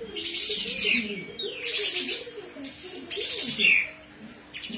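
Caged kapas tembak bulbul singing rapid burst phrases ('besetan'): three loud bursts of fast, high chattering notes, each ending in a falling whistled sweep, about a second and a half apart.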